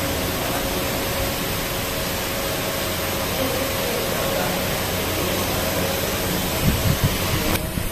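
Steady workshop background noise: an even hiss with a low machine hum, like ventilation or machinery running. A few low thumps come about seven seconds in.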